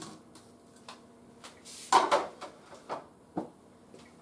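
Kitchen handling noises: a few light knocks and clicks and one louder clatter about two seconds in, as a baking sheet of toasted corn taco shells is handled and set down.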